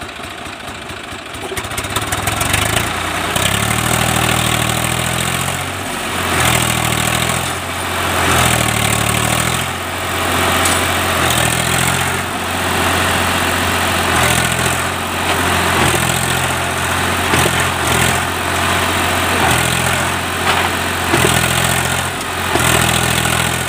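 Swaraj 744 FE tractor's three-cylinder diesel engine, opened up from idle about a second and a half in, then revving hard under load, rising and falling again and again as the tractor, stuck in wet mud, tries to pull itself out with its rear wheels spinning.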